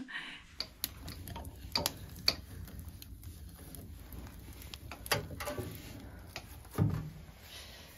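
Wood-burning kitchen stove being tended: scattered sharp clicks and knocks from the firebox and the stove's metal parts over a low steady rumble, with a louder knock near the end as the stove door is shut.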